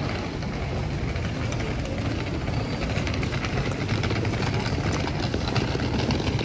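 Wheeled suitcases rolling over cobblestones: a steady low rumble with a rapid clatter of clicks that builds from about a second and a half in.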